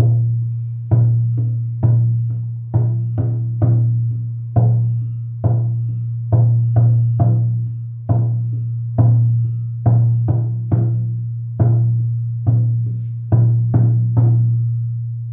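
Hand frame drum of whitened bison rawhide struck with a fur-padded beater in an uneven rhythm of about one to two strokes a second. Each stroke gives a deep booming ring that carries into the next, and the last one, about a second before the end, rings out and fades.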